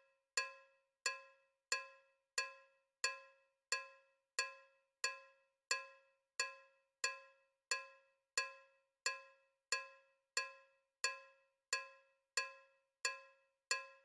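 A cowbell-like click struck at a perfectly even beat, about one and a half strikes a second, each one the same pitch and loudness and ringing briefly, like a metronome keeping time.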